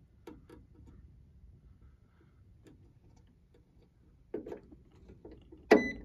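Multimeter probes tapping on contactor terminals: faint scattered ticks, then a sharp click near the end with a short high-pitched beep from the meter.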